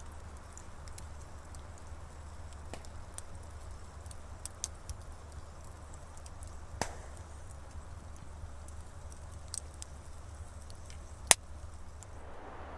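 Campfire wood crackling, with scattered sharp pops; the loudest pop comes about eleven seconds in.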